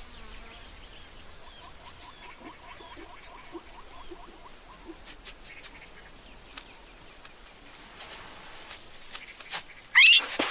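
Quiet savanna ambience of insects, with a faint repeated chirping trill for the first few seconds and scattered small clicks. Near the end comes a sudden loud, rising squeak.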